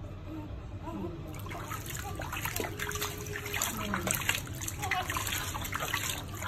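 Water splashing and trickling in a small plastic baby tub as hands wash a newborn; the splashing becomes busier about a second in.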